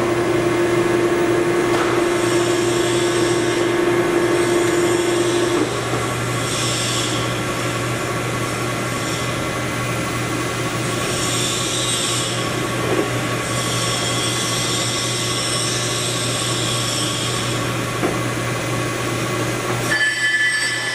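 Poreba heavy-duty engine lathe running: the spindle and chuck turn with a steady tone for about six seconds, then the spindle stops while the machine keeps up a steady hum. Near the end the hum drops away.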